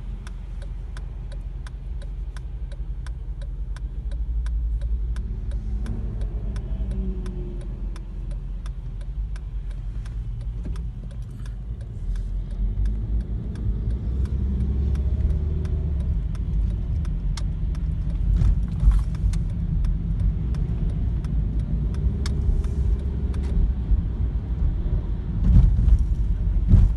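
Car driving on slushy winter roads, heard from inside the cabin: a steady low rumble of engine and tyre noise that swells somewhat as it goes on, with a few louder bumps near the end. A fast, even ticking, about three a second, runs over it for much of the time before fading out.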